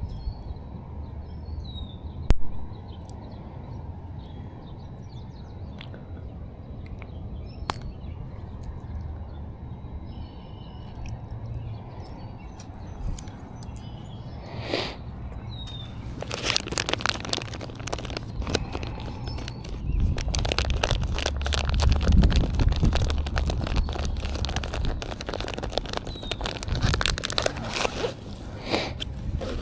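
Outdoor ambience with a steady low rumble and faint bird chirps; from about halfway, a long run of crunching and crackling noises.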